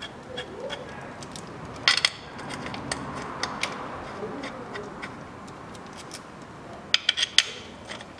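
Small metallic clicks and clinks of steel pan bolts being threaded by hand into a Chevrolet Cruze manual gearbox oil pan, with a sharp double clink about two seconds in and a quick run of four clinks near the end.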